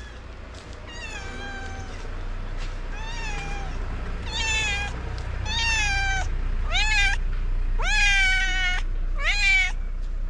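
Stray tabby cat meowing repeatedly, about seven meows, each rising then falling in pitch, growing louder as they go.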